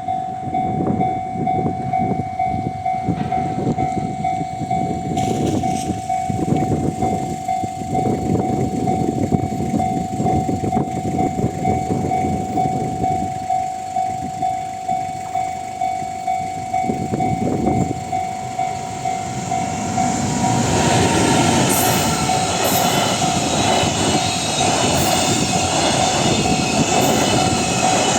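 Freight train rolling past a level crossing, its wheels clattering over the rail joints in a steady rhythm. Under it runs the crossing's warning alarm, a Tohoku-type alarm tone repeating steadily. The passing gets louder and fuller about two-thirds of the way through.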